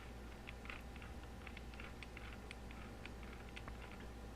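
Faint, irregular light clicks and taps from handling a cheap cordless grinder and its plastic parts, over a low steady hum.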